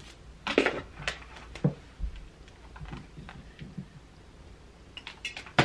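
Scattered sharp clicks and taps with faint rustling as hair is handled and a flat iron is clamped onto it. There are four clicks in the first two seconds and the sharpest one at the very end.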